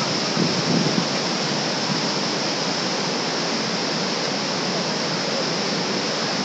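Steady rush of a mountain river's whitewater rapids running over boulders, with a few soft thumps in the first second.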